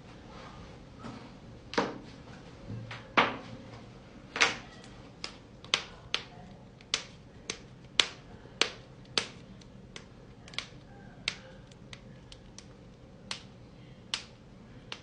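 A run of sharp joint cracks and pops, about twenty separate clicks at uneven spacing, the loudest few in the first half.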